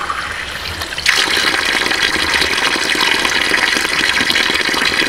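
Cold spring water running from a small outlet in the rocks and splashing steadily; the splashing gets abruptly louder about a second in.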